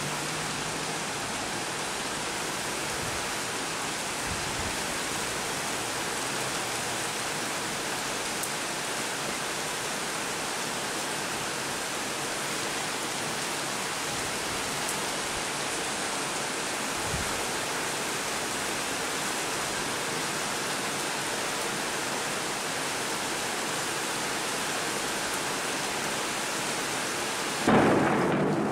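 Heavy rain pouring onto a flooded street, a steady, even hiss of drops hitting water. Near the end a sudden, loud, low rumble breaks in.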